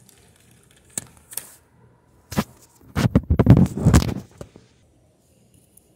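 Handling noise right at the microphone: a few light clicks, then from about three seconds in a loud spell of rubbing, scraping and knocking as the camera is moved about on the carpet next to the Lego locomotive, ending about a second and a half later.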